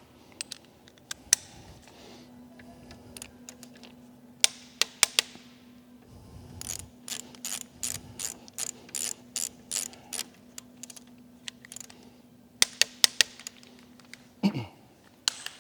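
Torque wrench tightening fork pinch bolts: a run of even ratchet clicks, about three a second, in the middle, with louder single sharp clicks before and after it.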